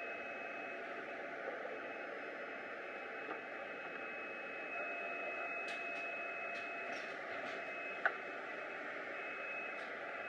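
Automatic book box assembly machine running: a steady mechanical hum with a faint high whine, several short high hisses in the middle, and one sharp click about eight seconds in.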